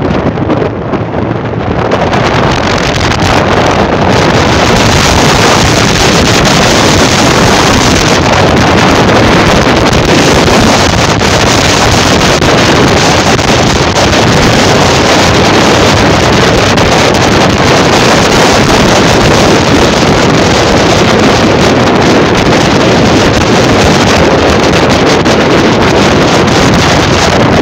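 Heavy wind rushing over the microphone of a phone filming from a moving vehicle at road speed, mixed with road and engine noise; it builds over the first few seconds and then holds steady.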